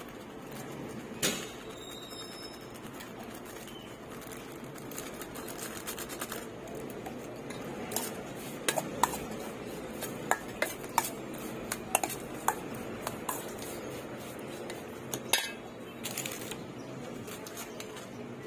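A metal spoon stirring and tossing small raw fish in a stainless steel bowl, clinking and scraping against the metal, with a run of sharp clinks through the middle.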